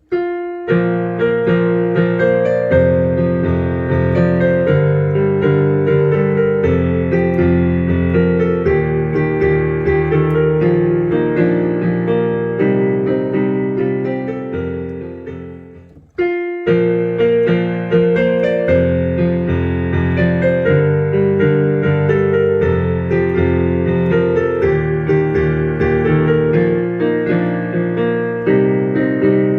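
Piano playing a lively classical piece in many quick notes. The playing fades away, then starts again about sixteen seconds in.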